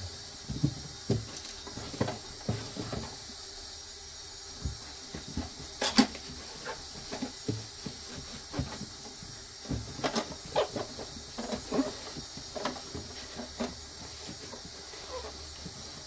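A damp cloth rubbing and wiping inside the plastic wash tray of a Roborock robot vacuum's base station, with scattered light knocks and taps of fingers and cloth against the plastic. The knocks come irregularly, the sharpest about 6 s and 10 s in.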